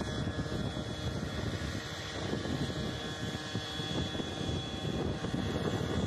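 Wind buffeting the microphone on a windy day: a loud, continuous rumbling roar that swells and dips with the gusts.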